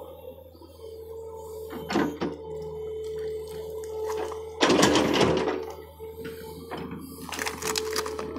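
John Deere excavator working: a steady engine drone with a held whine, broken by loud, rough bursts of noise about two seconds in, around the middle, and again near the end.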